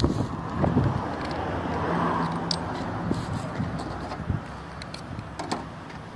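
Steady outdoor car-park noise, with a few light clicks as keys are handled.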